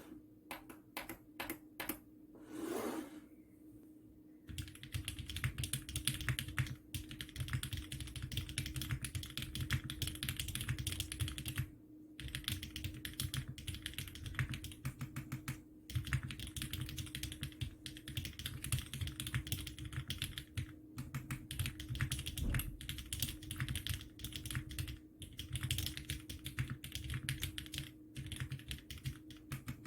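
Bakeneko 65 custom mechanical keyboard with lubed Cherry MX Hyperglide Black linear switches on an aluminium plate in a soft gummy O-ring mount, being typed on. A few separate keystrokes come first, then fast continuous typing from about four seconds in, with a few brief pauses.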